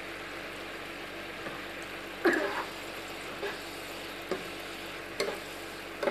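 Food sizzling in a non-stick wok as it is stirred with a spoon, which knocks and scrapes against the pan about five times, loudest about two seconds in.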